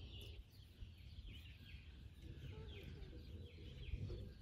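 Birds chirping faintly: a steady run of short, falling chirps about twice a second, over a low background rumble.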